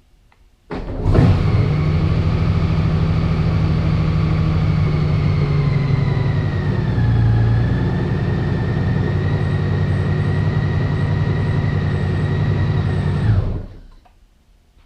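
Honda Gold Wing GL1800's flat-six engine starting up about a second in and idling steadily, with a slight dip in pitch about halfway through, then switched off near the end.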